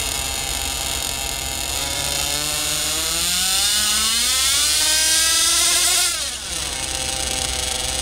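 Small engine of an RC mini pulling tractor idling, then revving up with a steadily rising pitch for about four seconds as it pulls a weighted sled. The revs then drop sharply back to idle about six seconds in.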